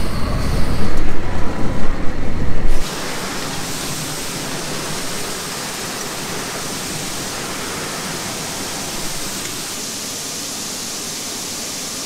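A loud, gusty low rumble for about the first three seconds, then an abrupt change to a steady, even hiss of soybeans running through a tractor-driven grain auger.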